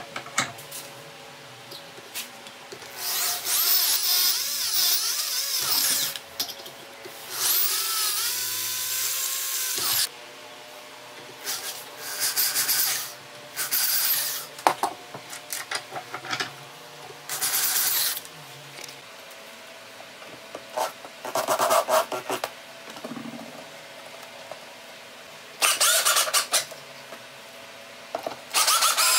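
Electric drills running in about eight separate bursts of one to three seconds, stopping and starting, some rising or falling in pitch as they speed up or slow down. The drill works a small metal disc held in a vise with a right-angle attachment, then drives hardware into a plywood disc.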